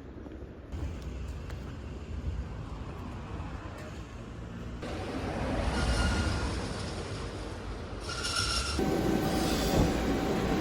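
Eizan Electric Railway train running on its rails. The rumble grows louder about halfway through, and high-pitched wheel squeals come in near the end.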